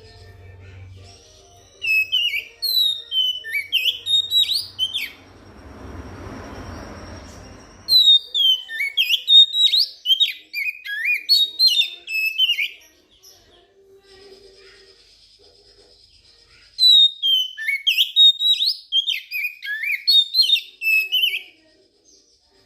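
Oriental magpie-robin (kacer) singing in three bouts of rapid, varied whistles and chirps, each a few seconds long, with short pauses between them. A soft rushing noise fills the gap between the first two bouts.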